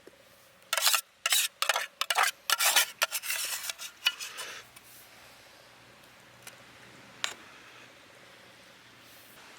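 A spoon or similar utensil scraping and clinking against a camp cooking pot in a quick run of strokes for about four seconds, followed by two single clicks.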